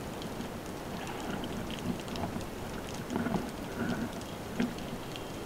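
Underwater sea noise picked up by a camera in its waterproof housing: a steady wash with many scattered faint clicks and crackles.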